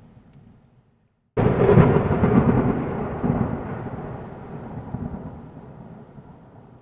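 Thunder sound effect: a fading rumble dies away, then a sudden loud thunderclap about a second and a half in rolls into a low rumble that slowly fades over several seconds.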